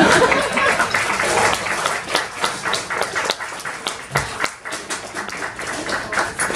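Audience applauding with hand claps, dense at first, thinning to scattered claps around the middle and picking up again near the end.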